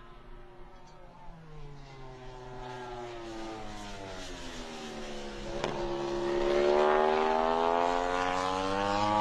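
MotoGP racing motorcycle's four-cylinder engine running on track: its note falls steadily as the bike slows, then rises and grows loud as it accelerates away, about six seconds in.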